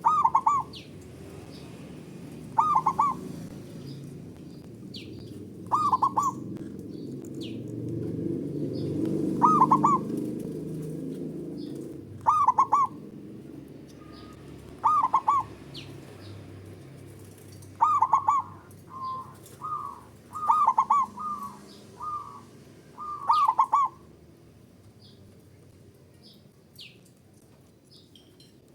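Zebra dove (perkutut) cooing: short, rippling, bubbling phrases repeated about every two to three seconds, with a quicker run of shorter notes a little past the middle. Faint high chirps from other small birds sit in the background.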